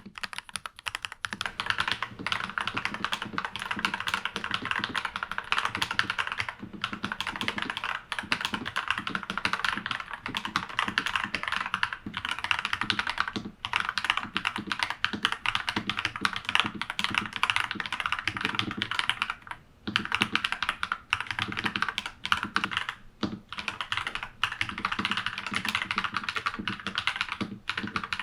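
Fast, continuous typing on a NuPhy Halo96 mechanical keyboard fitted with lubed Akko Vintage White linear switches: a dense stream of keystroke clacks. There are brief pauses about six and a half, thirteen and a half and nineteen and a half seconds in.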